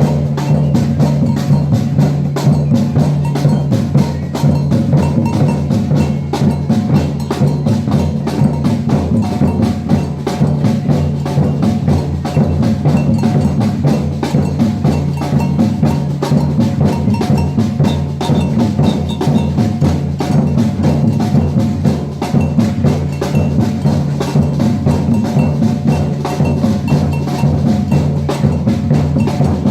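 Batucada percussion band playing: massed drums beating a dense, steady rhythm without a break.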